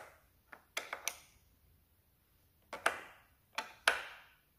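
17 mm spanner clinking against the metal high-pressure injector pipe unions on a diesel engine as they are nipped up: irregular sharp metallic clinks in small clusters, each ringing briefly, the loudest near the end.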